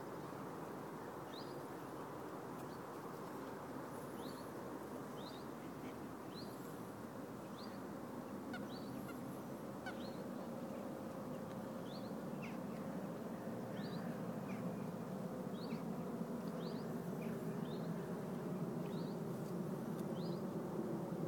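A small bird calling again and again in short, high, falling chirps, roughly one a second, over a steady low rushing background that grows a little louder near the end.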